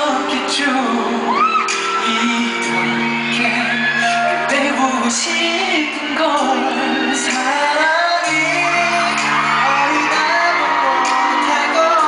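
Live pop ballad: a male vocalist singing into a microphone over long, held backing chords, with fans screaming and whooping.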